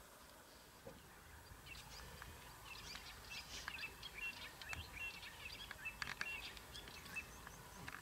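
Faint birds chirping: a scatter of short, high calls that grows busier from about two seconds in.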